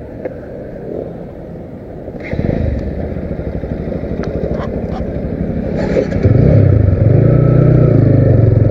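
Motorcycle engine running as the bike pulls away. It gets louder about two seconds in, then about six seconds in it jumps to a loud steady drone as the bike gets under way.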